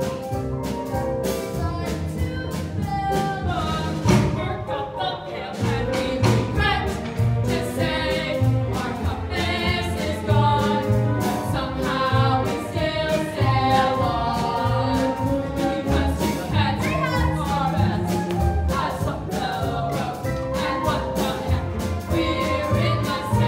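Stage musical number: a group of voices singing a show tune with instrumental accompaniment, a steady bass beat coming in about five seconds in.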